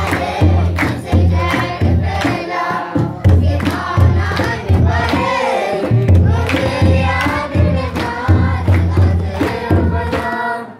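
Children's choir singing an Eritrean Orthodox Tigrinya hymn (mezmur) in unison, with hand-clapping and a deep drum beating about twice a second.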